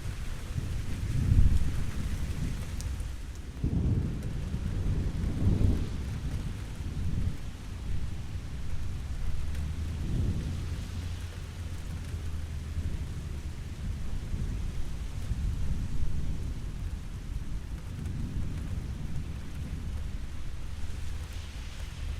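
Steady rain with thunder rolling in and out as low rumbles, the loudest about a second in and again around four to six seconds in.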